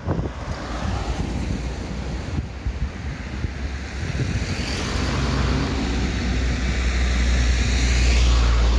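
A motor vehicle driving up close on the street, its low engine hum and tyre noise growing louder through the second half and peaking near the end.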